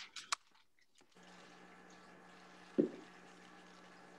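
Quiet handling sounds as first aid kit items are moved on a table: a couple of short crackles at the start and one dull thump near three seconds in. A steady low hum comes on about a second in and continues underneath.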